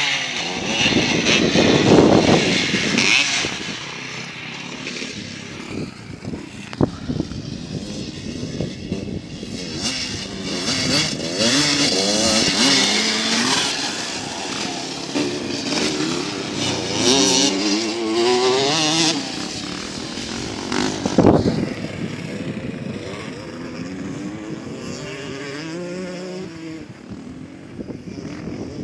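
Motocross dirt bikes revving on a dirt track, engine pitch rising and falling over and over as they accelerate and shift. The loudest passes come about two seconds in and again about twenty-one seconds in.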